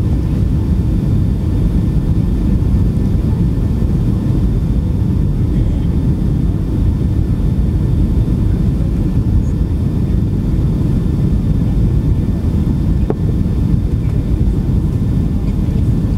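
Cabin noise inside a Boeing 757 on final approach with flaps extended: a steady low rumble of the jet engines and rushing air, unbroken throughout.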